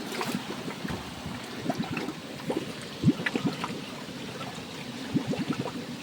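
Water trickling and splashing in a small stream, with many irregular small splashes and ticks.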